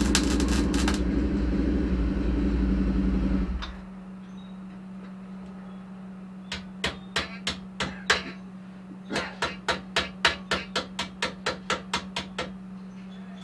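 Welding arc crackling on a thin, rusty exhaust pipe, stopping about a third of the way in and leaving a steady low hum. Then light hammer taps on the welded pipe: a few single knocks, followed by a quick run of about a dozen at roughly four a second.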